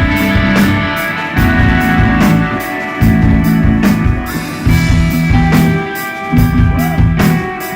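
A desert rock band playing a psychedelic jam live: a repeating bass riff under long held electric guitar notes, with steady drum and cymbal hits.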